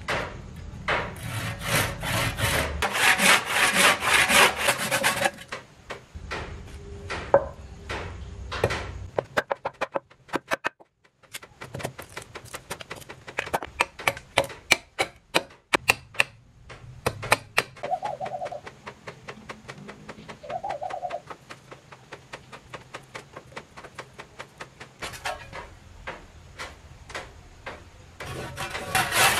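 Hand saw cutting pale wood in quick back-and-forth strokes, then sharp knife cuts and chops at a small wooden block after about ten seconds, and sawing again near the end.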